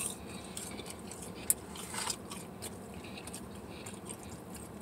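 A person chewing and eating waffle fries, with small crunches and soft mouth sounds and a sharp click about a second and a half in.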